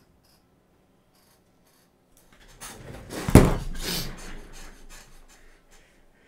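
Silence for a couple of seconds, then clothing and bedding rustling and rubbing as a person gets up from a chair and moves about, with one dull thump about three and a half seconds in. The rustling fades away near the end.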